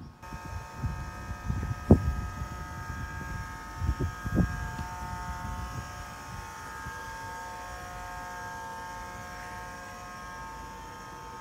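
City bus standing at a stop with its engine and auxiliary equipment running, giving a steady hum with several fixed tones. Dull thumps about two seconds in and again around four seconds.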